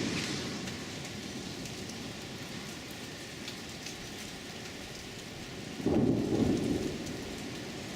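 Thunderstorm: a steady hiss of rain, with a thunder rumble fading right at the start. A louder peal of thunder rumbles for about a second, some six seconds in.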